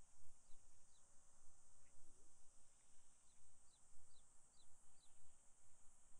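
Small birds chirping: a scattering of short, falling chirps, five of them in quick succession in the second half, over a steady high hiss and a low rumble.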